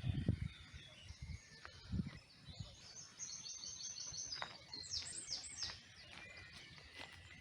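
A small songbird singing: a quick run of high, repeated notes starting about three seconds in, finishing with a few falling notes. Low bumps and rumble come at the start and again around two seconds in.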